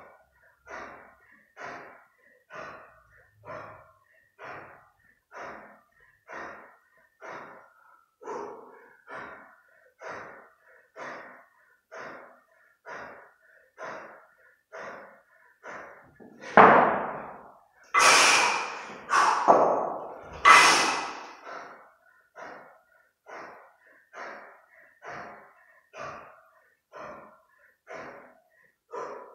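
Heavy, rhythmic breathing, about one and a half breaths a second, of a kettlebell athlete working with two 32 kg kettlebells held in the rack. A little past halfway it breaks into four much louder, harsher breaths over about four seconds, then settles back into the same steady rhythm.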